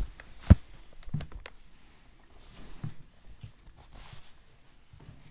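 Rummaging through a dresser drawer: a sharp knock about half a second in, then scattered lighter clicks and knocks as things are moved about.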